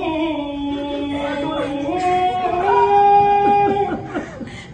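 Background song: a solo voice singing slow, long-held notes that step from one pitch to the next.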